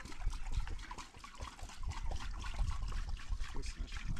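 Water trickling and splashing in small, irregular spatters, over a low rumble.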